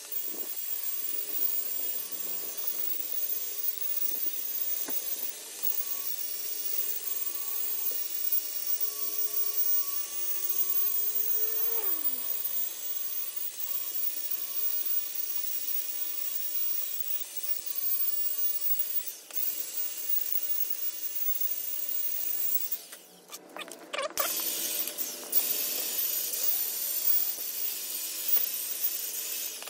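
Power tool cutting the ends off a steel headlight bar: a steady hiss with a motor tone that slowly rises and then winds down about twelve seconds in. It stops briefly about three-quarters through and starts again, brighter.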